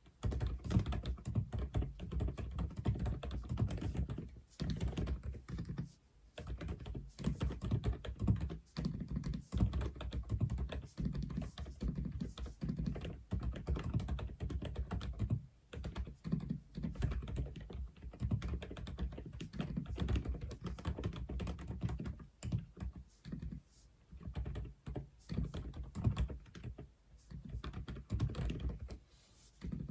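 Typing on an Aula F87 mechanical keyboard: a quick, steady run of deep-sounding keystrokes, broken by short pauses about five seconds in and again around sixteen seconds.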